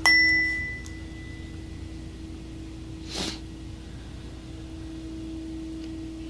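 A tuning fork is struck: a sharp hit with a bright, high ring that fades over about a second and a half, over a steady low tone. A short breath sound comes about three seconds in.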